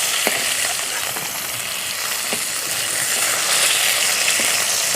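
Oil sizzling in a kadai from shallow-frying rui fish: a steady hiss with a few small pops.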